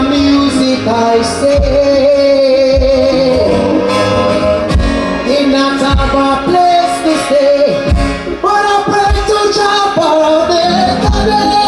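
A singer performing live over loud backing music with a steady, heavy bass beat.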